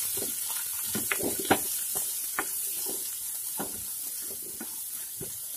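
Sliced onions sizzling in hot oil in a non-stick pan while a spatula stirs them, with a steady hiss and irregular clicks and scrapes of the spatula against the pan.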